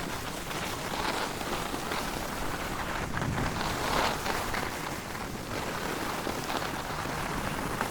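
Downhill skis sliding over snow, a steady hiss that swells and eases with the turns.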